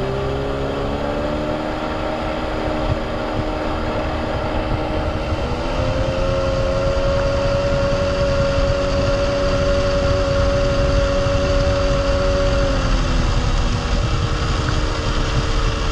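Sea-Doo jet ski's two-stroke Rotax twin running under way, rising slightly in pitch about a second in, then climbing quickly to a higher steady pitch about five seconds in as the throttle is opened, and easing back down near the end. This is a main-jet water test, accelerating from half to three-quarter throttle.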